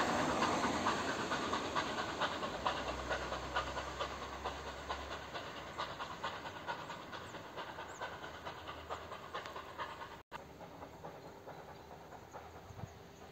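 Ol49 steam locomotive's exhaust chuffing in a steady, quick beat as the train draws away, fading gradually into the distance, until the sound cuts off abruptly about ten seconds in.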